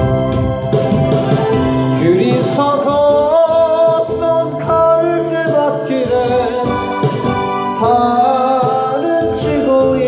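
A man singing a Korean song into a handheld microphone over a keyboard-and-organ backing track, the melody wavering with vibrato.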